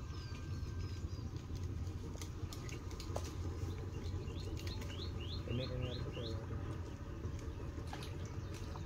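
Outdoor ambience at the water's edge: a small bird gives a quick run of about six short high chirps midway through, over a steady low rumble and scattered faint clicks.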